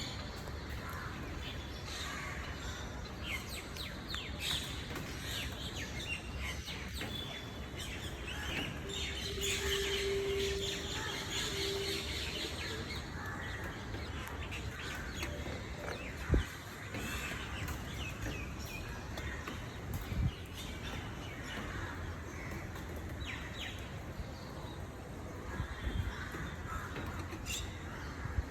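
Birds chirping and calling over a steady low background rumble, with a held steady tone for about three seconds partway through and a couple of sharp knocks later on.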